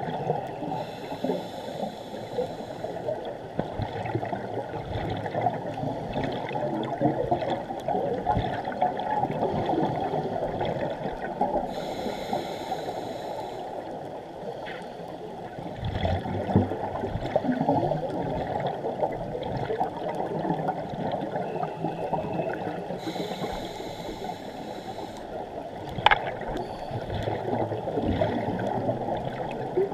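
Muffled underwater sound through a GoPro housing: a scuba diver breathing through a regulator, with steady bubbling and water noise. Three higher hissing inhalations come roughly eleven seconds apart, and there is a single sharp click near the end.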